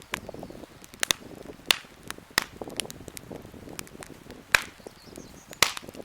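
Wood campfire crackling, with sharp irregular pops and snaps over a soft low rustle.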